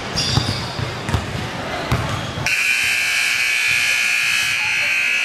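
Basketball bouncing on a hardwood gym floor, then about two and a half seconds in the scoreboard buzzer sounds one long, steady tone as the game clock runs out, ending the game.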